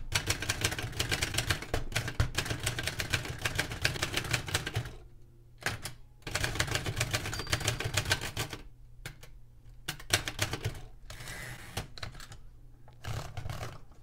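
1935 Remington Rand Model 1 manual typewriter being typed on: a fast run of keystrokes for about five seconds, a short pause, another quick run, then scattered single strokes with gaps. The machine's typing is very quiet.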